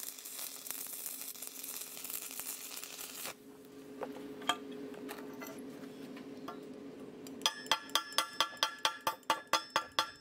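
Stick-welding arc on galvanized steel pipe crackling and sizzling for about three seconds, then cutting off, leaving a low steady hum. About seven seconds in, a chipping hammer starts knocking the slag off the fresh weld: quick, sharp, ringing metal taps, about four or five a second.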